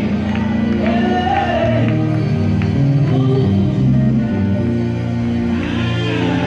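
Live gospel music: a woman sings the lead with backing singers over a band, with long held notes in the accompaniment.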